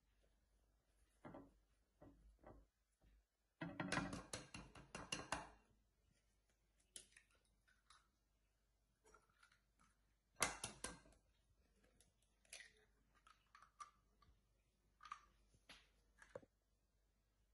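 Faint, scattered clicks and taps of kitchen handling as eggs are cracked into a ceramic bowl. There is a dense run of ticks about four seconds in and one sharp crack about ten seconds in.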